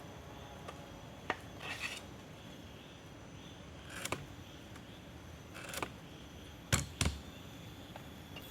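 A handful of sharp clicks and snaps, a second or two apart, some with a short scrape or rustle just before, from something being handled or cut by hand. The loudest two come close together near the end.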